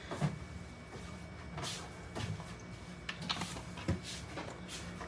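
Vinegar being poured from a plastic bottle into a pot of sliced vegetables and milkfish, heard as several short, faint splashing and bottle-handling noises over a steady low hum.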